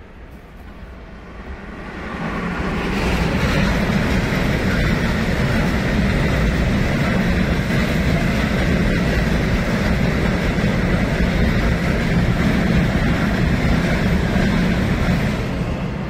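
Freight train of tank wagons, hauled by a Vectron electric locomotive, passing on the track, its wheels running over the rails. It builds up about two seconds in, holds steady, and begins to fade near the end.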